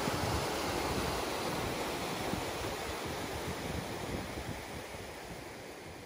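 Steady rush of falling water with wind rumbling on the microphone, fading out gradually over a few seconds.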